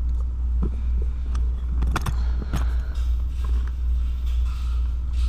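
Scattered plastic clicks and knocks of a blower motor resistor and its plug being handled and lined up, with a cluster of them about two seconds in, over a steady low rumble.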